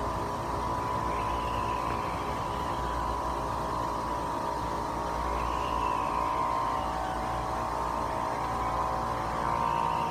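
Haunted-house maze soundscape: a steady electronic drone over a low rumble, with a faint swooping tone that rises and falls about every four seconds.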